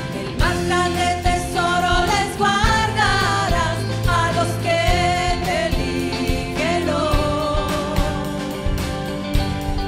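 A woman singing a Spanish-language worship song with vibrato, over a live band with a steady drum beat. The words include "el más grande tesoro les guardarás" and "a los que te eligen hoy".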